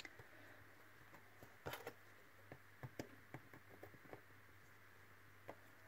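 Near silence with a few faint, scattered small clicks and taps as thin craft wire is handled and bent with pliers against a card template, over a low steady hum.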